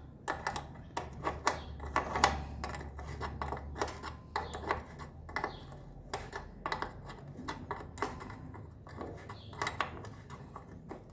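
Metal hand tools clinking and clanking while a motorcycle chain is being tensioned: irregular metallic clicks and knocks, several a second at times.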